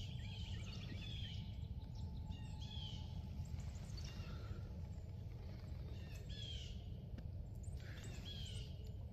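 Wild birds calling in short, repeated calls every second or two, over a steady low rumble.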